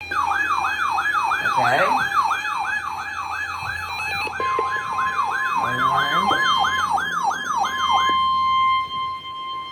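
Emergency alert tones: an electronic siren-like wail sweeping up and down about three times a second. A steady high tone joins it partway through and carries on alone after the wail cuts off.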